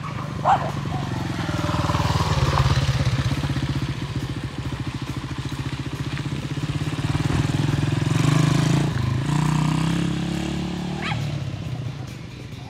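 Honda XL175 dirt bike's single-cylinder four-stroke engine running as it is ridden around, its note rising and falling with the throttle.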